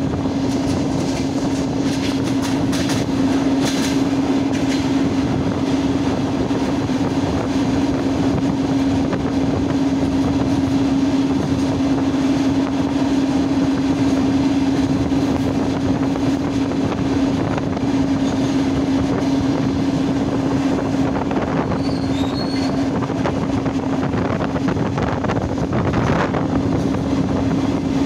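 Running noise of a suburban electric train heard from inside the carriage while under way, with a constant low hum throughout. A few brief clicks come in the first few seconds.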